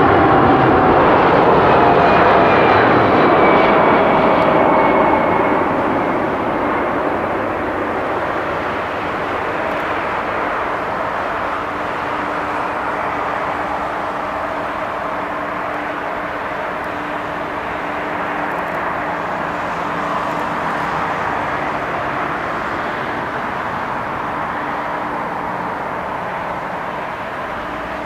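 Boeing 747-400's four Pratt & Whitney PW4056 turbofan engines on a landing approach. The jet passes close with a loud engine whine falling in pitch over the first few seconds. It settles into a steadier, more distant jet noise with a faint low hum as the airliner touches down and rolls along the runway.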